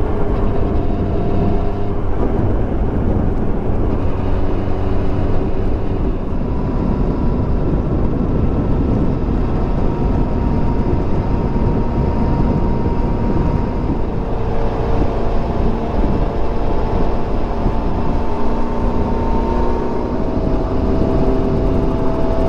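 Motorcycle engine running under way, its note stepping and gliding up and down in pitch a few times with speed and gear changes, under heavy wind and road noise on the microphone.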